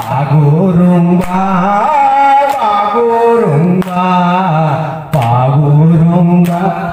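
Several men singing an Assamese Bihu folk song together, in long, drawn-out, chant-like held notes. Sharp hand claps come about every second and a half.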